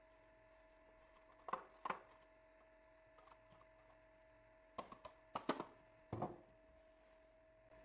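Light, sharp knocks of a metal box grater against the pan and table as the last dough is grated off and the grater is put down: two taps, then a quick cluster of knocks a few seconds later. A faint steady hum runs underneath.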